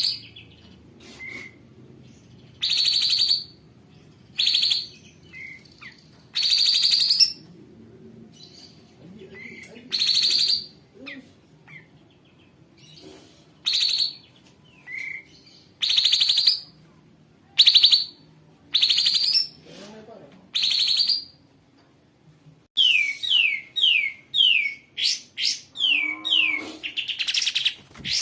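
Kapas tembak, a bulbul, giving repeated harsh, rasping calls about half a second long, a second or two apart. Near the end it breaks into a fast run of short chirps that slide downward, about three a second.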